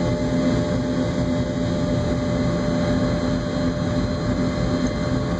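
Cabin noise of a jet airliner on the ground: a steady engine hum over a low rumble.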